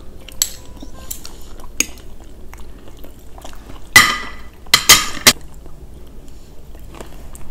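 Metal cutlery and chopsticks clinking and scraping on ceramic plates during a meal. There are scattered light clicks, with several louder sharp clinks around four to five seconds in.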